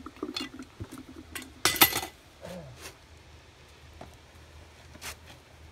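Metal and hard-ware clinks and knocks as raku firing gear (metal cans, lids, tongs and fired ceramic pieces) is handled: a few light clinks, then a short loud clatter about a second and a half in, and a few lighter knocks after.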